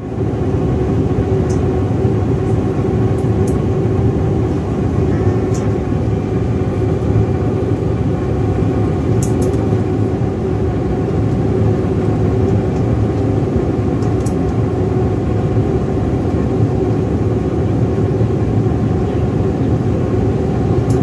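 Steady drone of a jet airliner's engines and rushing air, heard from inside the cabin in flight, with a low, even hum running through it.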